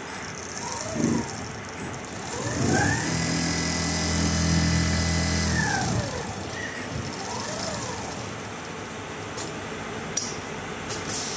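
Richpeace 360° rotating-head automatic sewing machine running, its drive motors whining up and down in pitch as the sewing head moves across the frame. A long rising whine is held for about three seconds in the middle and then falls away, and a few sharp clicks come near the end.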